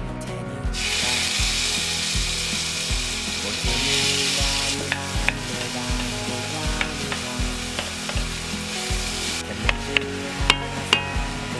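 Chopped red chili paste sizzling loudly in hot coconut oil in a pan, starting about a second in and cutting off near the end. After that come a few light clicks as it is stirred. Background music with a steady beat runs underneath.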